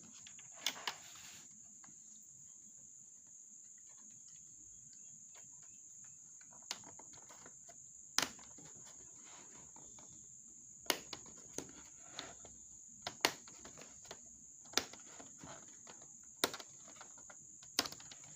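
Sharp clicks and taps, about nine of them spread irregularly, from small plastic parts and screws being handled while the laptop is taken apart. Under them runs a steady high-pitched tone.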